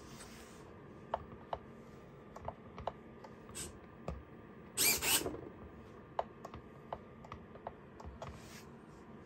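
Small plastic clicks of an RC transmitter's toggle switches and buttons being worked, scattered irregularly, with one short louder burst of noise about five seconds in.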